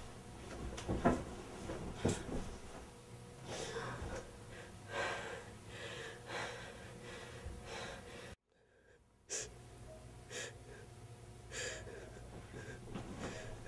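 A person breathing hard in irregular gasps and wheezing breaths, about one every second or so, broken by a moment of dead silence about eight and a half seconds in.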